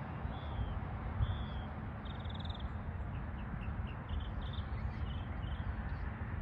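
Birds calling in short, irregular chirps over a steady low rumble.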